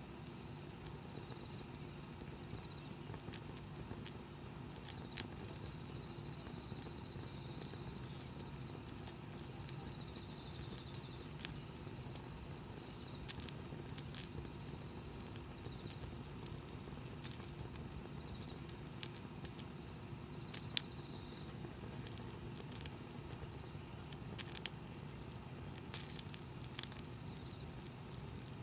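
Wood campfire burning: a steady low hiss with scattered sharp pops and crackles, the loudest about two-thirds of the way through and a small cluster near the end.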